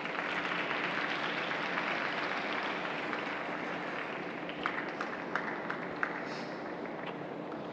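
Light applause from a small crowd, a dense patter of claps that thins out after a few seconds, followed by a handful of louder single claps about halfway through.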